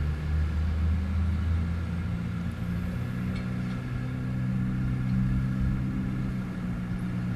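Steady low engine hum, with a slight shift in pitch about two seconds in.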